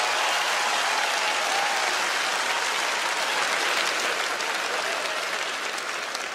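Studio audience applauding, the clapping dying down gradually toward the end.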